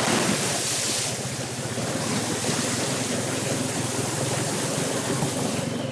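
ATV driving through a shallow creek crossing: water splashing and spraying off the tyres, heaviest in the first second, over the steady running of the engine.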